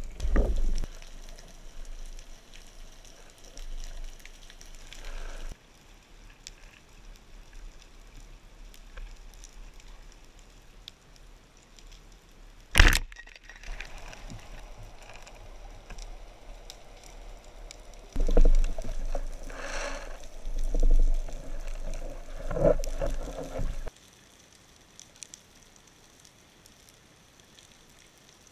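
Underwater ambience recorded below the surface: a low watery rumble with many faint clicks, and one sharp, loud crack about 13 seconds in.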